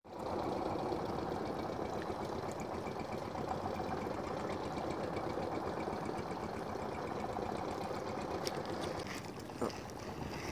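Spinning fishing reel cranked steadily by hand, a fast, even whirring of its gears as line is wound in on a small hooked fish.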